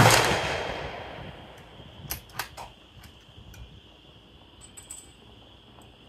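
A single shot from a homemade .222 Remington single-shot bolt-action rifle, the report echoing and fading over about a second and a half. About two seconds in, a few sharp metallic clicks as the bolt is worked.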